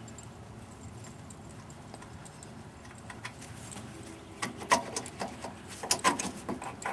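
A low, steady background, then from about four seconds in an irregular run of light clicks and knocks, like small hard parts being handled and set in place.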